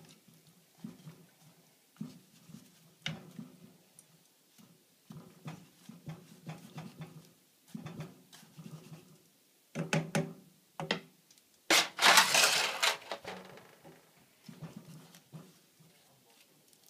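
Melted candle wax sloshing and dripping in a pot as wax-soaked newspaper rolls are turned and lifted with tongs, with scattered knocks of the tongs against the pot. There is a louder splashing burst about twelve seconds in.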